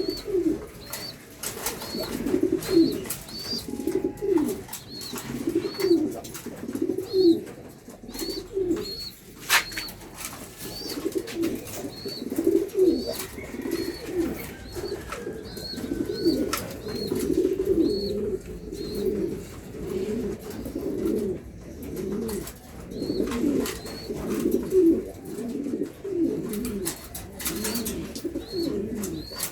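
German beauty homer pigeons cooing over and over, phrase after phrase, with a short high peep repeating about twice a second.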